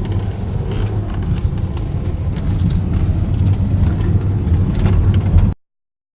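Car driving off: engine and road noise as a low rumble that grows slightly louder, cutting off abruptly near the end.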